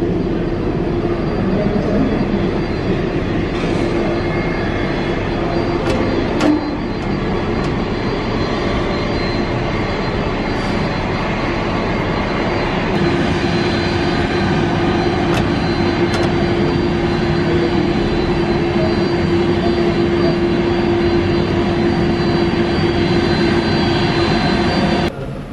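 Jet airliner's engines running steadily as it taxis, a continuous rush with a held low hum and a faint high whine. There are a few sharp clicks and a knock about six seconds in. The noise cuts off abruptly near the end.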